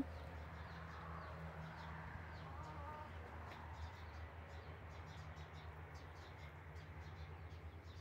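Faint outdoor ambience with scattered short bird chirps and a brief pitched call about two and a half seconds in, over a low steady hum.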